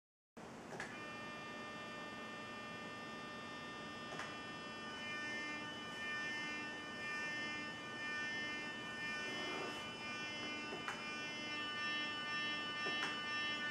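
The small motors of a homemade laser galvanometer, driven by an audio signal and vibrating like speakers, giving out a buzzy, humming version of music with held tones. A few sharp clicks come through, and the sound starts about half a second in.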